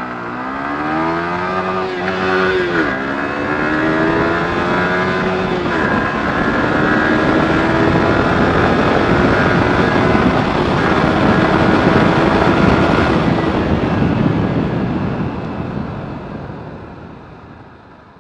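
Yamaha R15 V3 single-cylinder sport bike accelerating hard from a standing start, its engine pitch climbing in each gear and dropping at each upshift, with wind rush growing as speed builds. Near the end the throttle closes and the sound dies away as the bike slows.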